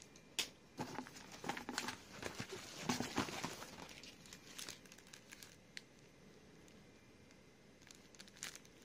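Paper and plastic packaging rustling and crinkling as items are handled in a cardboard box, with scattered light clicks. Busiest in the first few seconds, then only faint rustles until a few clicks near the end.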